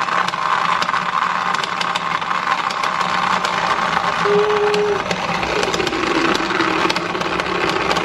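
Battery-powered mini makeup-sponge washing machine running, its small motor spinning a beauty blender in soapy water with a steady whir and a constant rattle of clicks. The machine is filled with too much water, so water spills out of it.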